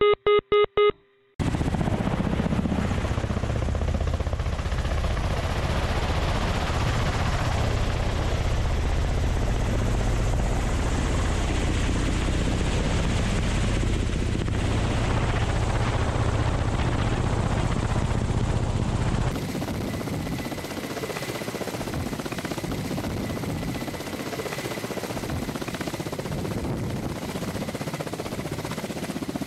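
Kamov Ka-52 attack helicopter's coaxial rotors and turbine engines running in a steady drone, heavy in the low end. It follows about a second of chopped cockpit-radio bursts. About two-thirds of the way in, the helicopter sound drops in level and loses most of its low end.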